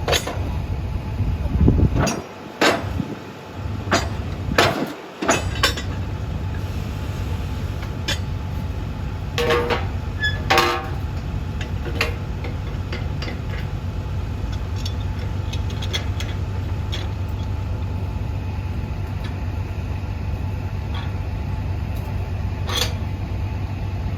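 A heavy engine running steadily with a low drone, broken in the first half by a series of sharp metal clanks. Two of the clanks, about ten seconds in, ring on briefly.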